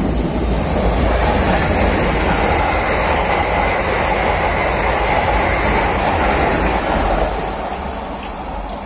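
Renfe Class 447 electric commuter train running past on the rails: a steady rumble and rush of wheels with a faint high whine. It fades gradually after about seven seconds as the train pulls away.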